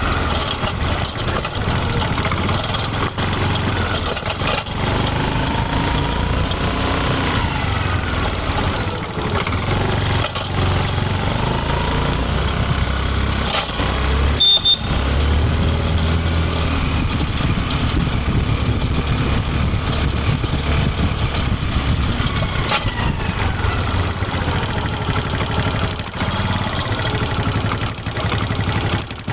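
Honda Activa scooter's single-cylinder four-stroke engine running, its pitch rising and falling a few times as it is revved and eased off, with a short dip about halfway through followed by a louder stretch.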